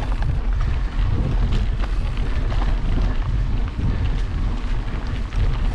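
Wind buffeting the microphone of a camera carried on a moving bicycle, a loud low rumble, with many short knocks and rattles from the bike running over a rough trail.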